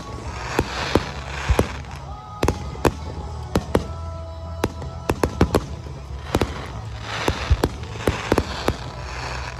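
Aerial fireworks display: dozens of sharp bangs from shells bursting in quick, irregular succession, with hissing crackle at the start and again near the end.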